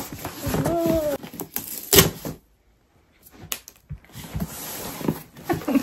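Cardboard shipping box being pulled and worked open by hand: scraping and rustling of cardboard with a few sharp knocks, the loudest about two seconds in.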